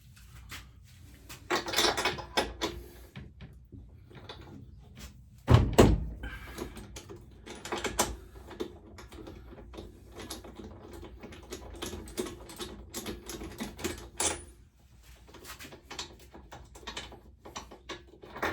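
Clicks, knocks and rattles of tools and small mower parts being handled during repair work, with one heavy thump about five and a half seconds in.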